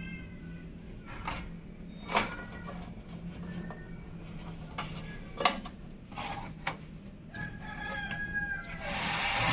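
Several sharp clicks and knocks, a second or more apart, with short pitched animal calls in the background and a brief burst of hiss near the end.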